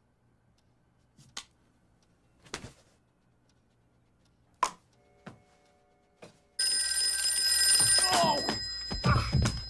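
A telephone bell ringing loudly, starting suddenly about six and a half seconds in. Before it there are only a few faint knocks.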